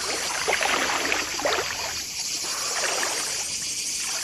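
Pool water splashing and lapping with a swimmer's breaststroke arm strokes: a run of small, irregular splashes over a steady hiss.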